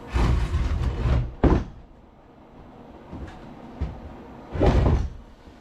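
Knocks and scraping from heavy wooden pieces being handled and shifted, with one sharp knock about a second and a half in.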